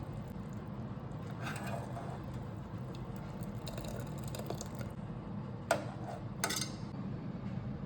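Kitchen handling sounds: a few light scrapes and rattles over a steady low hum, then two sharp clicks less than a second apart near the end.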